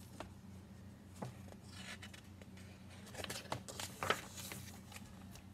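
Quiet room tone with faint handling clicks, then the soft rustle and flap of a picture book's page being turned about three to four seconds in.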